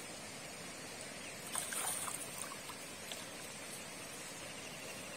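A hooked fish splashing in the shallows as it is hauled to the bank on a hand line, with a short burst of splashing about a second and a half in, over a steady outdoor hiss.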